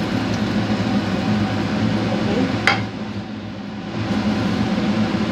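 A single sharp clack of cookware as a frying pan is emptied into a rice-cooker pot, over a steady low appliance hum.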